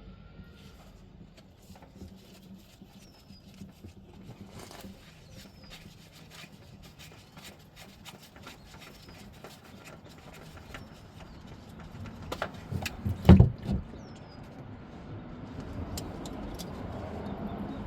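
Quiet work-area ambience with faint scattered clicks and a few small bird chirps. A short cluster of loud knocks comes about two-thirds of the way in, and after it a steady rushing noise grows toward the end.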